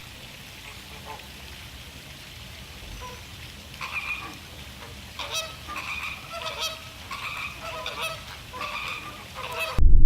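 Birds calling: a string of short calls in quick succession, beginning about four seconds in, over a steady hiss.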